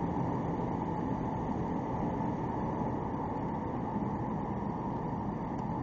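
Stock 2004 Ford Mustang 3.9-litre V6 pulling steadily in gear with no shift, heard from inside the cabin together with road noise.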